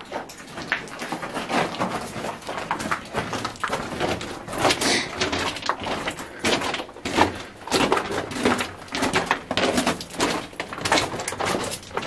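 Footsteps crunching and scuffing on a rough rock tunnel floor, close and irregular, with clothing and backpack rustling.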